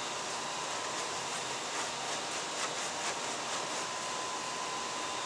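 Tanned coyote hide being worked over an upright breaking blade: a run of soft scraping strokes, about three a second, from about half a second to three and a half seconds in, over a steady background hiss. The hide is being broken (softened) so the dry-tanned skin does not go stiff.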